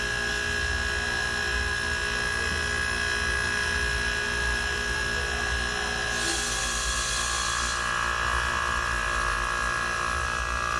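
Small refrigeration compressor running with a steady hum. About six seconds in, a hiss lasting a second or two as the manifold valve is opened to charge more refrigerant gas into the system.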